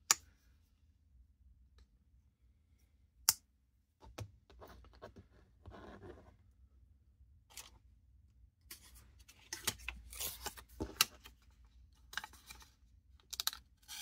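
Two sharp clicks as the pocket knife's second blade is handled, then paper rustling and being sliced with the AUS-8 clip-point blade in a paper sharpness test, the cuts growing louder near the end.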